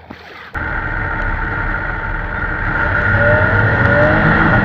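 A motor running steadily, starting abruptly about half a second in, with a faint rising whine about three seconds in.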